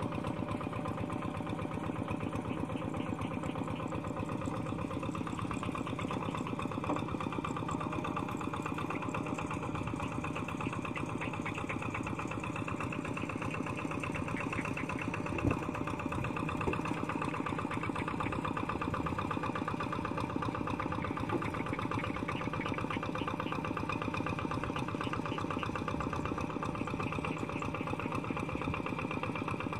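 Two-wheel walk-behind hand tractor's single-cylinder diesel engine running steadily under load as it works the mud of a flooded rice paddy, with one short knock about halfway through.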